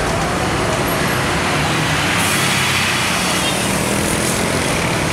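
Scania coach passing close by as it moves off, its diesel engine running steadily under tyre and road noise. The sound grows hissier about two seconds in as the side of the bus goes past.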